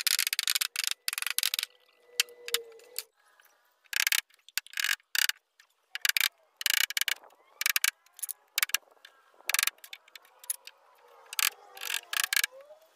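An irregular series of sharp clicks and taps, some in quick runs, with a faint wavering tone underneath.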